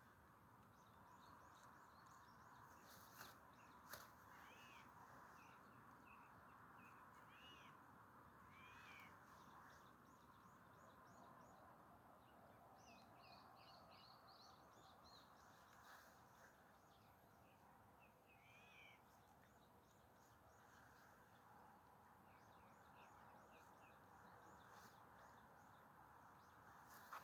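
Faint birdsong over a steady outdoor hiss: several birds calling with short chirps, repeated arched notes and quick runs of high notes, with a few sharp clicks.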